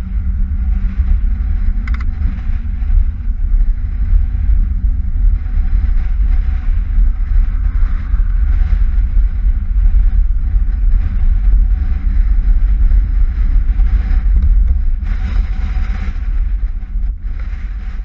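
Gusty wind buffeting the microphone of a camera on a moving velomobile: a loud, constantly fluctuating low rumble, with the rolling velomobile's road noise beneath.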